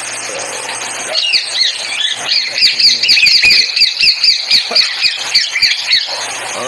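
A bird squawking in a fast series of sharp, sweeping calls, about four a second, starting about a second in and stopping near the end, over a steady hiss.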